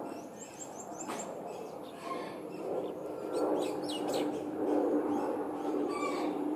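Birds chirping in short, quick calls, with a steady low hum and a rushing noise coming in about halfway through.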